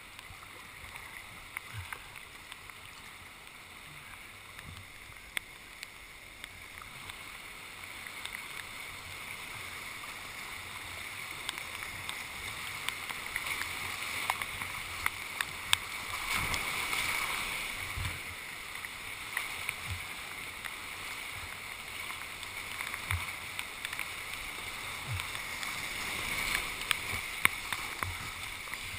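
Rushing river whitewater heard from a kayak, swelling louder about halfway through as the boat runs a rapid and again near the end, with sharp splashes and paddle strokes on top.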